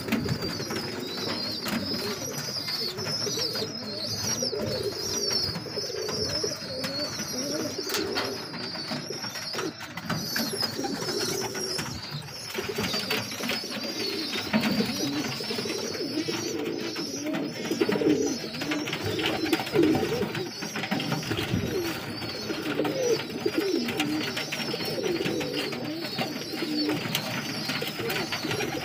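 Domestic pigeons cooing over one another without a break, with wing flaps and scuffling in the nest boxes. A steady high chirring runs underneath.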